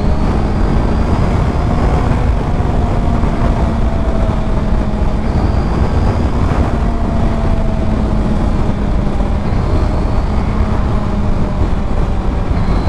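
Heavy wind noise on the microphone of a Honda sport motorcycle ridden at steady cruising speed, with the engine's even note underneath.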